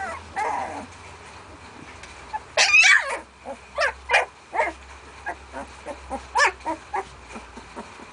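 Sixteen-day-old puppies yelping and squealing as they wrestle, in short high calls. The loudest cluster comes about two and a half seconds in, followed by a string of brief yelps.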